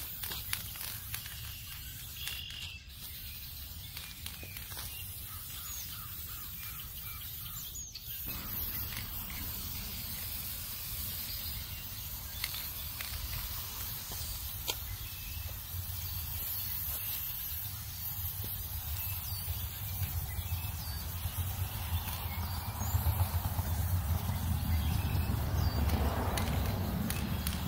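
Aerosol spray-paint can hissing as paint is sprayed, over a steady low rumble that grows louder in the last few seconds.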